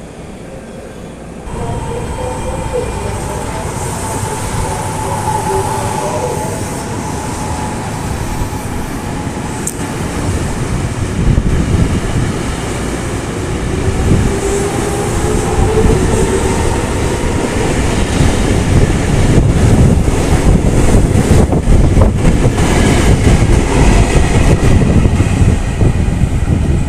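A train passing close by. A loud rumble sets in about a second and a half in, with a whining tone that shifts in pitch above it. It grows louder, and rapid wheel clicks over the rail joints fill the second half.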